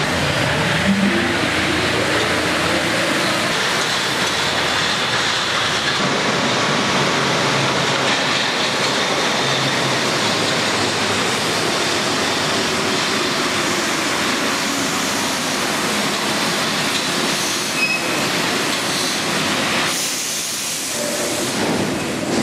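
MP 59 rubber-tyred Paris metro train running into the station along the platform: a steady rolling din of tyres and running gear, with a faint rising motor whine near the start. The train slows, and about two seconds before the end the rolling noise eases and a hiss of air stands out as it draws to a stop.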